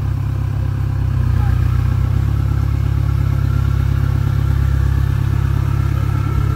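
Off-road 4x4 truck's engine running with a steady low drone, its pitch stepping up slightly about one and two seconds in.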